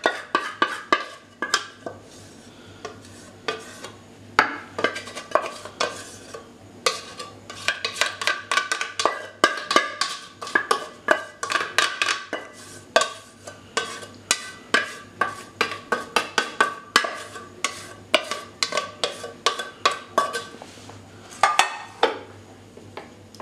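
A metal spoon clinking and scraping against a glass bowl, which rings briefly after the taps, as tomato sauce is spooned out and spread over the gratin. It is an irregular run of clinks, about two or three a second, ending in a loud cluster shortly before the end.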